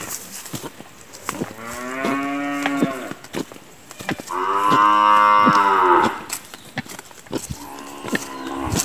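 A cow mooing three times: two long calls, about a second and a half and four seconds in, the second the loudest, then a shorter, fainter one near the end. Footsteps on a dry, leaf-strewn path click in between.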